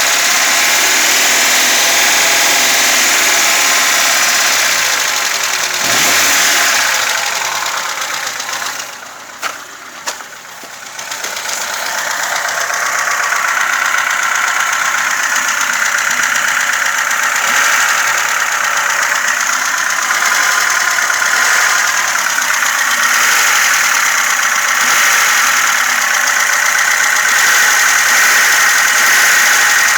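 VAZ 2106 four-cylinder engine running with valve knock, a light clatter from the valvetrain. About a third of the way in, the sound drops away for a few seconds, with two sharp clicks, then comes back.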